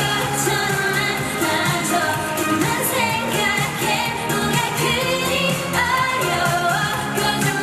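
A K-pop song: a sung vocal line over a steady beat.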